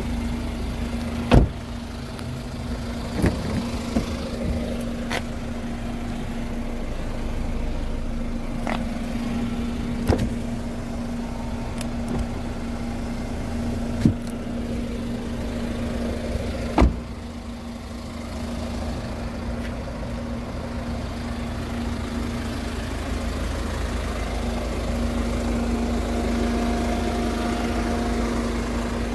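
A 2014 Hyundai Tucson idling with a steady hum, broken by a handful of sharp clicks and knocks, the loudest about a second in and about two thirds of the way through.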